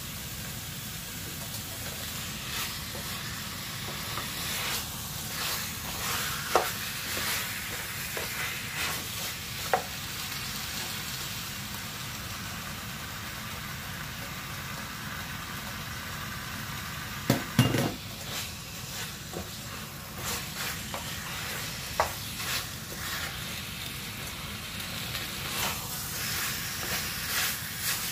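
Beef rendang sizzling in a stainless steel pan as it is stirred with a spoon, a steady hiss with scattered knocks of the spoon against the pan, the loudest a quick pair a little past halfway.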